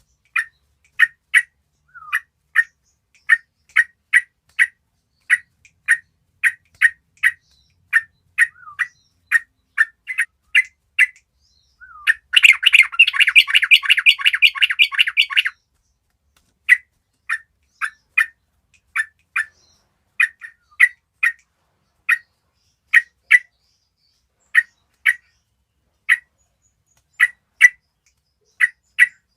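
Yellow-vented bulbuls (cucak trucuk) calling as a group: a steady run of short, sharp chirps, about one or two a second, with a dense burst of overlapping chatter about twelve seconds in that lasts some three seconds.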